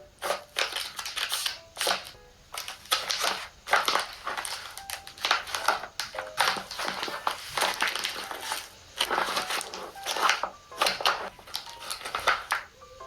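Quick, irregular crushing and crinkling noises, one burst after another.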